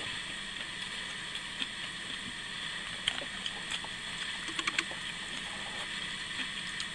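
Faint eating sounds, a few scattered soft clicks and taps from a plastic spoon in a foam takeout tray of bean-sprout stir-fry, over a steady hiss.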